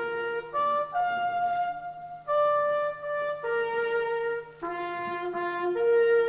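A solo trumpet plays a slow call of long held notes, one at a time: the call played during a ceremonial moment of silence.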